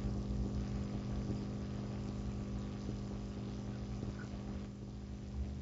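Steady low hum with a faint hiss under it: background noise on the call line during a pause in speech.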